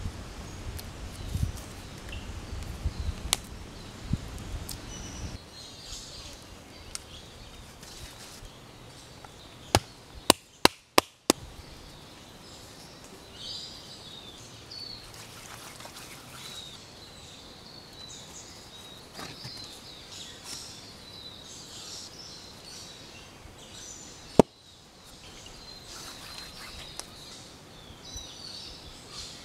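Forest ambience with birds and insects chirping high and steadily from about six seconds in, over low rumbling handling noise at first. A quick run of four or five loud sharp clicks comes about ten seconds in, and a single one about twenty-four seconds in.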